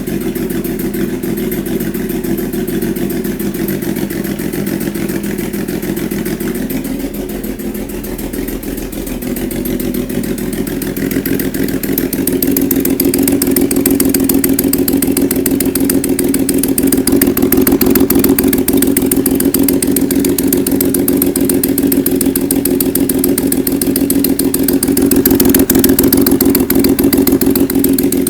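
Kawasaki Z1300 inline-six engine running steadily with a loud clapping, tapping noise, getting louder about a third of the way in. The owner puts the tapping down to exhaust and the emissions cover blowing by, and possibly a stuck valve.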